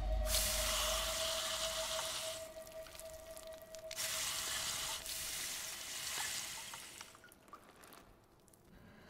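Alien acid blood sizzling as it burns a mark into a Predator's metal mask. The hiss comes in two stretches of about two seconds each, over a low held music tone.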